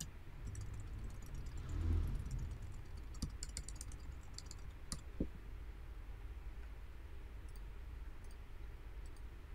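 Computer keyboard typing: quick runs of light key clicks through the first half, thinning to a few scattered clicks later. A soft low bump about two seconds in.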